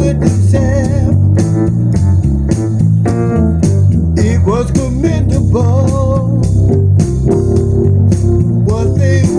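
Blues-style band music with a steady drum beat, a walking bass line, and organ and electric guitar carrying an instrumental passage with bending notes.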